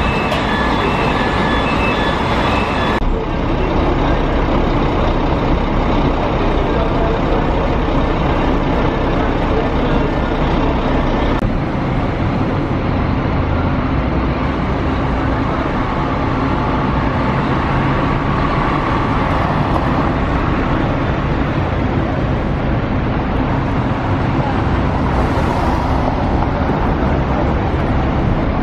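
Scania K400 coach's diesel engine running as the bus pulls out and drives across a terminal yard, a steady low engine sound over traffic noise. A repeated beeping sounds for the first three seconds.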